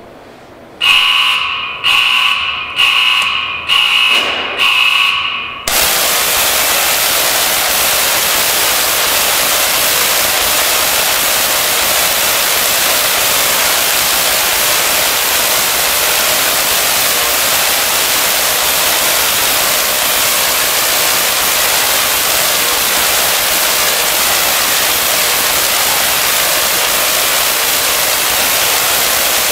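Five loud warning beeps, about one a second. Then, just under six seconds in, a 75,000-volt electric arc strikes from a metal ball electrode down over a bag of nachos on a ceramic insulator and runs on as a loud, steady hiss.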